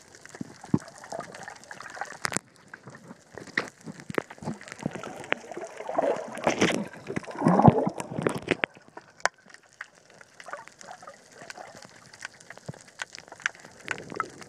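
Water sloshing and gurgling around a camera held underwater, with scattered sharp clicks and knocks. There is a louder stretch of gurgling in the middle.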